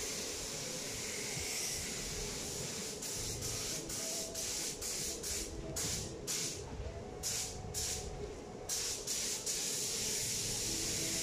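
Paint spray gun hissing as it sprays primer: a steady hiss, broken in the middle into a run of short on-off bursts as the trigger is pulled and released.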